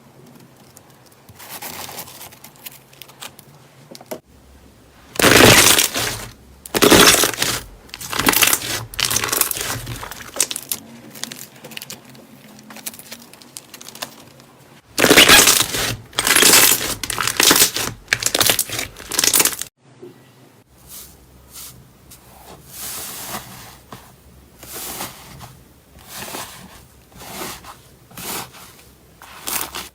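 Slime being squeezed, pressed and pulled by hand in quick, noisy bursts: two loud runs of squishing and crackling, then softer, evenly spaced presses near the end.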